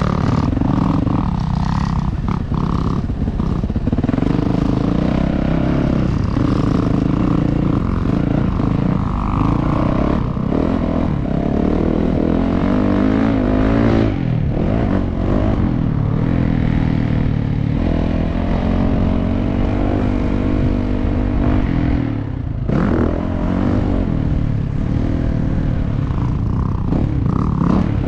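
Dirt bike engine being ridden hard on a motocross track, revs rising and falling again and again as the throttle is worked, with one short drop in level late on.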